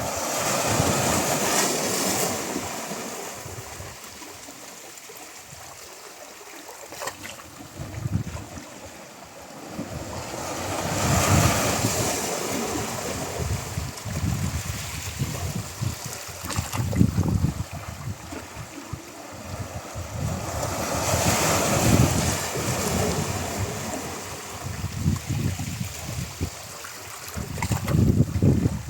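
Sea waves breaking gently on a shore: three surges of surf about ten seconds apart, each swelling up and fading away.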